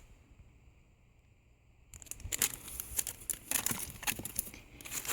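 Near silence for about two seconds, then the crinkling and rustling of a craft die's packaging being handled, in several short bursts.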